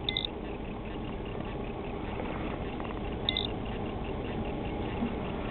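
Ranger 481V boat running, a steady low rumble, with two short high beeps about three seconds apart.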